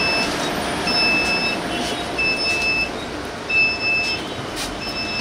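Door-open warning alarm of a Force Motors AC bus, sounding a high beep about every 1.3 s, each beep about half a second long, over steady background noise.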